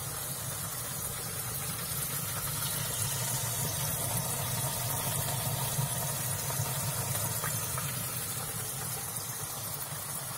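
Oat-breaded chicken fillet pieces frying in a tray of hot oil inside an oven: steady sizzling over a low steady hum.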